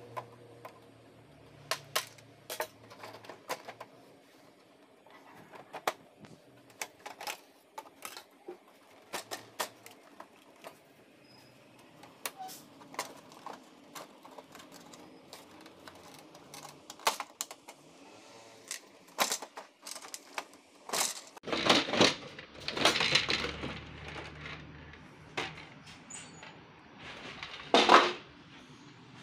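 Clicks, taps and light rattles of a Brother MFC-J3530DW printer's plastic housing and screws being worked with a screwdriver during disassembly. About two-thirds of the way in there is a louder run of plastic clattering and scraping, and one sharp knock comes near the end.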